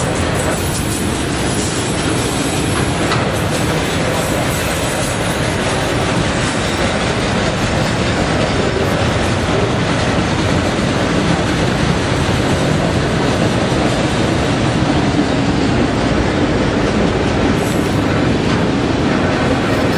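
Enclosed autorack freight cars of a manifest train rolling past close by: a steady, loud rumble and rattle of steel wheels on the rails.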